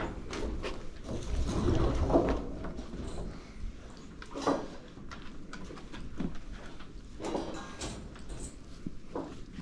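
Magnet-fishing rope being hauled up hand over hand through gloved hands: irregular rubbing, scraping and rustling handling noise. The heaviest handling is about two seconds in, and there are short scrapes later on.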